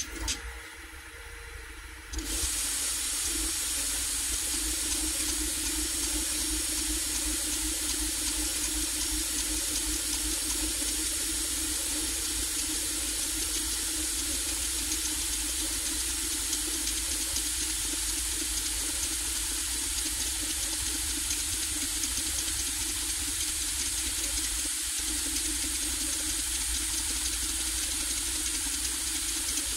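AnkerMake M5C 3D printer running a print: a steady whirring hiss from its fans and motors, starting suddenly about two seconds in.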